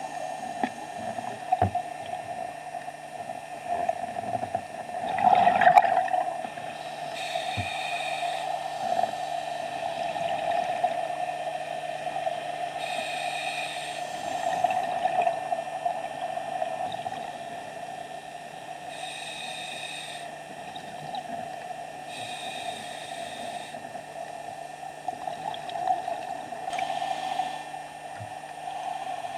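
Underwater sound of scuba breathing through a regulator: a high hiss on each inhalation every few seconds and a louder rush of exhaled bubbles about five seconds in, over a steady hum.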